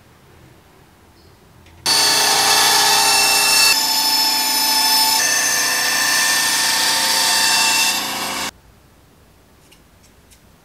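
Small benchtop band saw running and cutting a curve through MDF board: a steady machine sound with a whine that starts suddenly about two seconds in and cuts off about six seconds later.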